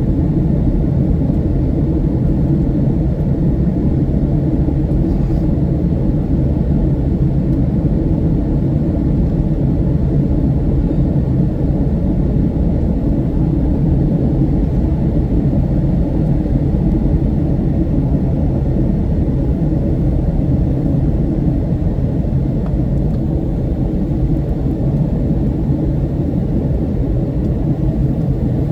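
Steady, loud low rumble of a Boeing 757-200's engines and airflow, unchanging throughout.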